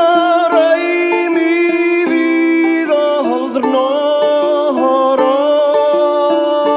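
Background music led by plucked string instruments, with a melody line that slides between notes about three seconds in.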